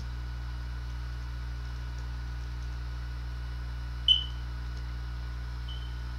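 Steady low electrical hum from the recording setup, with a short high-pitched beep about four seconds in and a fainter one near the end.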